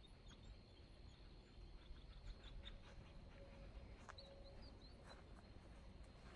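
Near silence: faint outdoor ambience, with a few faint high chirps about four seconds in.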